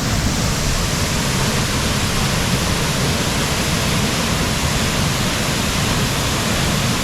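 Waterfall pouring in heavy flow after rain in the mountains: a loud, steady rush of water.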